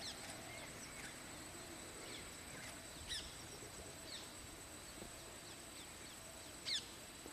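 Wild birds giving scattered short, falling chirps over a faint outdoor background, the loudest chirps about three seconds in and near the end.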